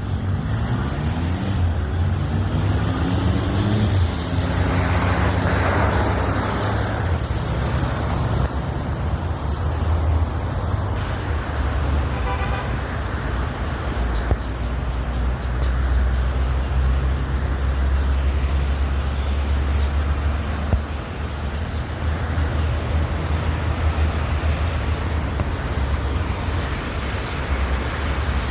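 Steady road traffic noise, with a vehicle's engine rising in pitch in the first few seconds and a brief horn-like tone about twelve seconds in.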